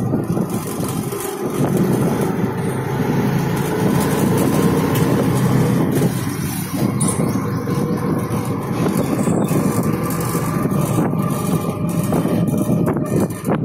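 Steady engine and road noise of a moving vehicle, heard from on board.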